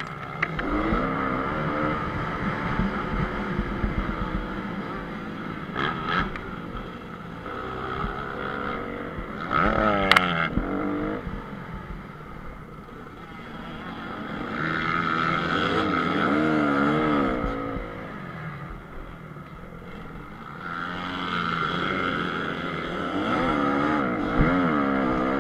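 Honda CRF250R's single-cylinder four-stroke engine revving hard and falling back again and again as the motocross bike is ridden around a dirt track, heard on board. There is a sharp knock about ten seconds in.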